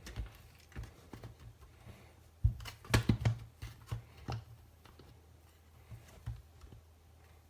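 Small plastic and metal parts handled on a workbench: scattered clicks and knocks, a quick cluster of them about two and a half to three and a half seconds in, over a low steady hum.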